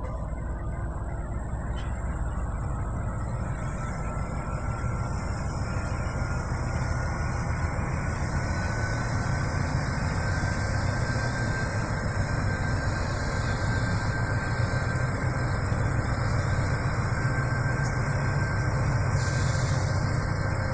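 Pacific National NR class diesel-electric locomotives, V16 diesel engines, passing in multiple with a steady deep engine rumble that grows slowly louder, and a thin whine slowly rising in pitch.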